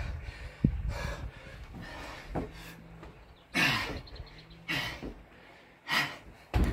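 A man breathing hard and panting through a set of Navy Seal burpees: a string of forceful exhales about a second apart, one of them voiced as a falling grunt. A short thud comes about half a second in.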